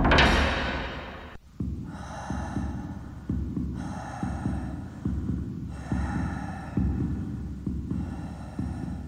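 A suspense sound cue from a drama's soundtrack: a loud hit at the start that dies away over about a second. It is followed by a low heartbeat-like thumping pulse, two to three beats a second, under a throbbing drone that swells in and out about every two seconds.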